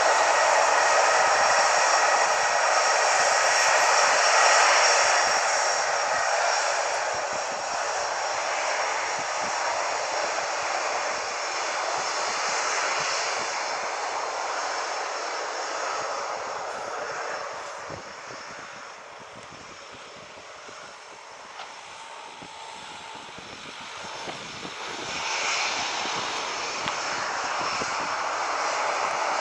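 Airliner's engines with a steady high whine over the roar, loud at first and fading away over about fifteen seconds, then swelling again in the last few seconds.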